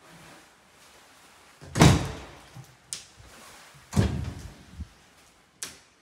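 Interior doors being handled: a white cupboard door is pulled open, with two loud thuds about two seconds apart and lighter clicks between and after them.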